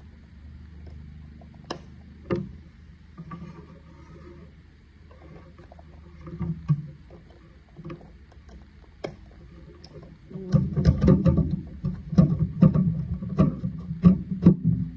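Handling noise from a standing-desk control box and its cables: scattered clicks and knocks of plastic and connectors, turning into a dense run of loud, irregular rattling and knocking in the last few seconds as the box is fitted to the metal desk frame.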